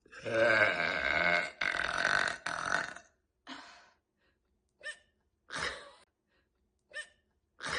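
A woman's long, deep burp lasting about three seconds, breaking twice. It is followed by five short hiccups spread over the next four seconds.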